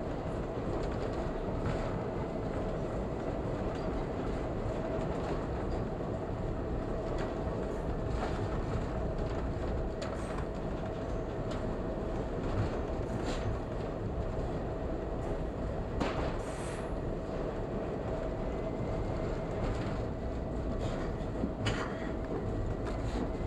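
Toronto subway train running at speed through a tunnel, heard from inside the leading car: a steady rumble of wheels on rail with a steady hum, and scattered sharp clicks from the wheels over rail joints.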